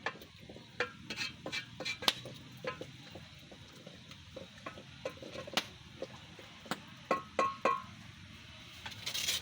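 A utensil stirring, knocking and scraping in a metal cooking pot: irregular sharp clinks and knocks, a few of them ringing briefly, with a short scraping rush near the end.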